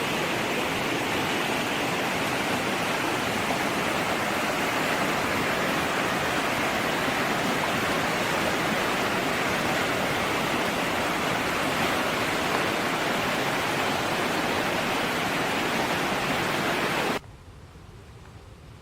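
Steady rushing of running water, even and unbroken, cutting off abruptly about seventeen seconds in to a much fainter background.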